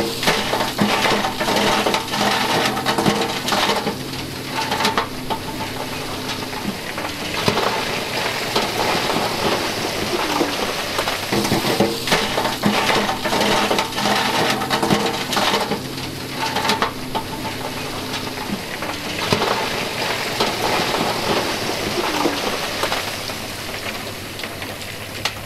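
Rocks clattering and sliding as a dump truck tips its bed, over the steady hum of the truck's running engine.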